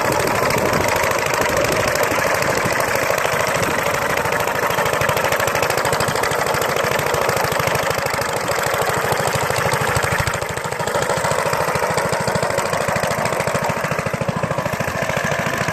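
Small engine of a Mayfield motor scythe running steadily with a rapid, even firing beat, dipping briefly about ten seconds in.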